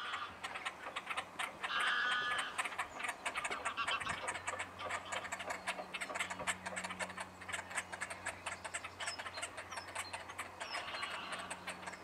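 Great crested grebes calling: a rapid run of harsh, rattling, clicking notes, with a louder, more tuneful call about two seconds in.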